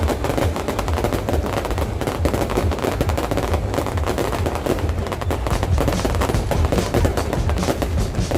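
Fireworks display going off in a dense, continuous barrage of crackling bangs and pops in rapid succession.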